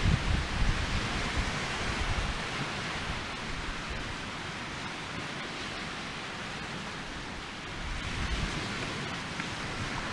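Steady rushing hiss of a log burning as a Swedish torch, with low gusts of wind buffeting the microphone at the start and again near the end.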